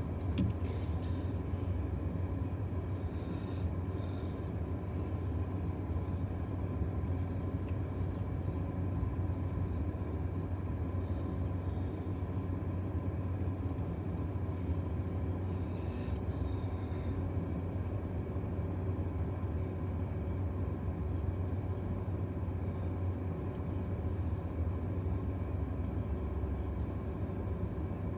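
Steady low vehicle rumble, unchanging in level, with a few faint ticks.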